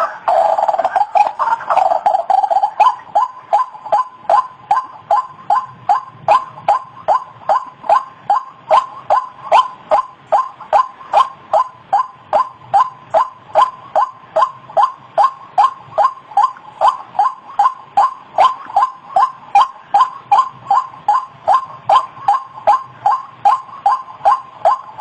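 White-breasted waterhen (ruak-ruak) calling: short calls repeated in a steady rhythm, a little over two a second, after a louder call that trails off in the first couple of seconds.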